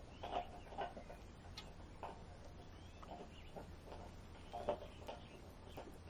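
Songbirds at a backyard feeder giving short, scattered calls, about a dozen over a few seconds, with a few faint thin whistled notes in between.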